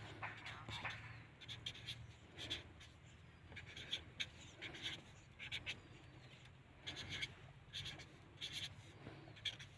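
Felt-tip marker pen writing digits on a sheet of paper, faint short pen strokes coming in small clusters.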